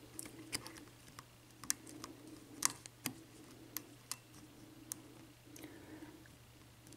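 Single-pin picking of an American Lock Series 5200 padlock: small, sharp, irregular metallic clicks as the pick lifts the pins against tension.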